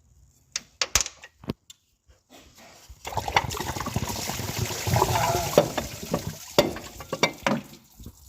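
A few sharp clicks, then from about three seconds in a few seconds of liquid splashing and pouring, with scattered knocks.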